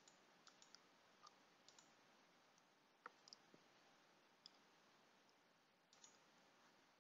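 Near silence: faint room tone with a few scattered, very faint small clicks.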